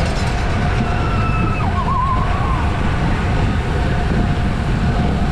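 Steady low wind rumble on the microphone of a moving bicycle racer, with faint tones from distant voices or whistles, one of them wavering about two seconds in.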